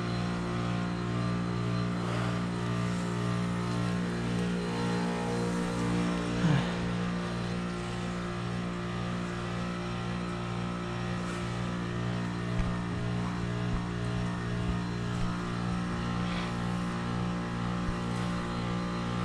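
2011 American Standard Heritage 15 heat pump outdoor unit running with a steady compressor hum during a defrost cycle. A brief sliding tone comes about six and a half seconds in, and a few faint knocks follow later.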